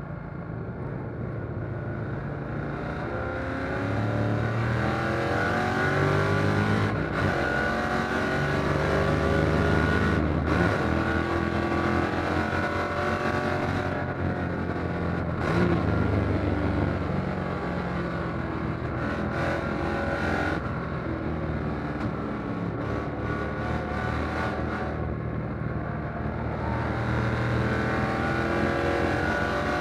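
Fuel-injected 1957 Corvette V8 race engine heard from inside the open cockpit at racing speed. Its pitch repeatedly climbs under acceleration, then drops at gear changes and when lifting for corners.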